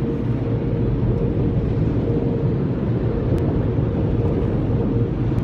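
Automatic tunnel car wash heard from inside the car's cabin: a loud, steady rumble of the wash machinery and water spray on the car, with a steady droning tone running throughout.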